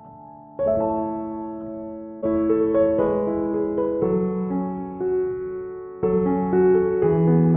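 Background piano music, slow chords and melody notes struck and left to fade.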